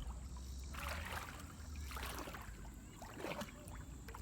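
Kayak paddle strokes in river water: three swishing splashes about a second apart.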